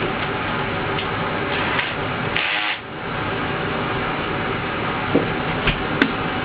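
Steady workshop background noise, with a few sharp clicks and knocks near the end.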